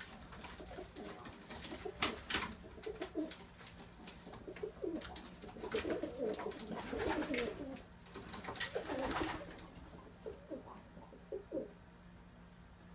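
Several domestic pigeons cooing in clusters of warbling calls, with a few sharp clicks among them. The calls thin out to a few short coos near the end.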